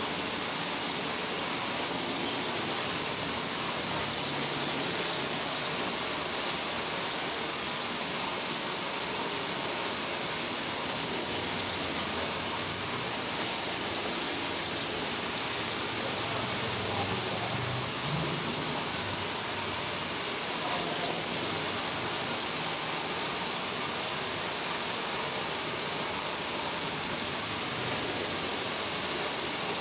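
Hand-held hair dryer running steadily, blowing a constant rush of air while hair is blow-dried.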